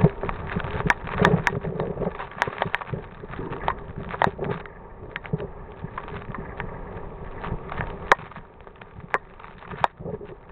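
Gusty wind buffeting the microphone: an uneven rushing noise that swells and eases, with scattered sharp crackles and knocks throughout.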